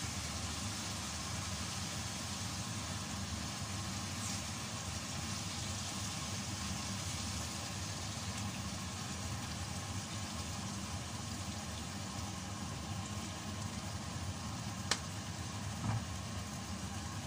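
Chicken in soy sauce and vinegar sizzling steadily in a stainless steel pot on a gas burner, over a steady low hum. A sharp click sounds near the end, then a softer knock about a second later.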